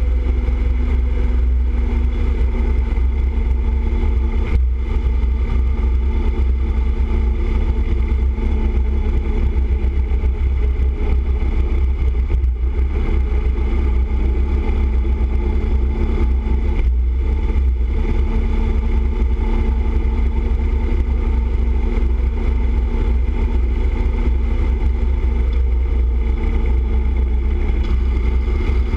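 Motorcycle engine running steadily at highway cruising speed, under heavy wind rumble on the bike-mounted microphone.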